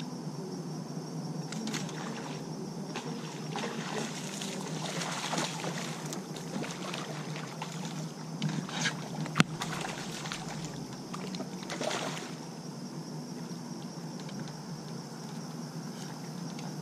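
Water splashing and sloshing close by in uneven bursts for about ten seconds, with one sharp click about nine seconds in.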